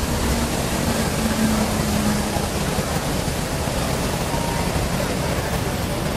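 Steady, even rushing outdoor noise, with a low hum that fades out about two seconds in.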